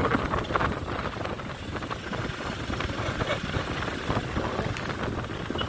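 Motorcycle running at road speed, with wind rushing and buffeting over the microphone on the moving bike.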